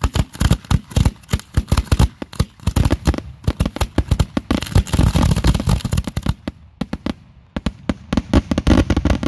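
A cluster of consumer fireworks going off on the ground in a rapid barrage of sharp bangs and crackling. The shots thin out briefly past the middle, then pick up again near the end.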